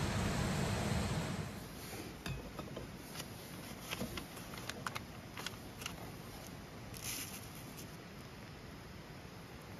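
A camp stove burner hisses steadily under a steaming kettle and cuts off about a second in. Then comes a series of light clicks and papery rustles as a paper coffee filter is fitted into a pour-over dripper and ground coffee goes in.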